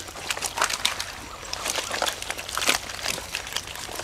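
Irregular splashing and squelching in muddy, shallow pond water: a quick flurry of short wet crackles.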